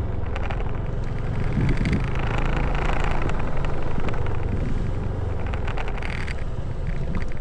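Motor scooter engine running steadily while riding along, with a continuous low rumble.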